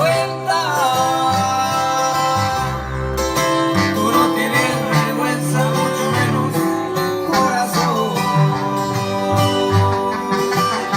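Country-style music with plucked guitar and banjo under a singing voice.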